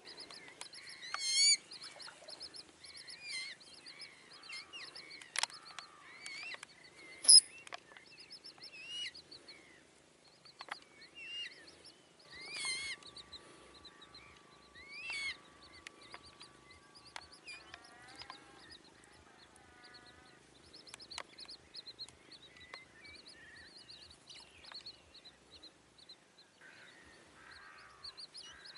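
Eurasian coots calling on the water: a run of high, wavering calls, the loudest about a second and about seven seconds in, with a few sharp clicks between.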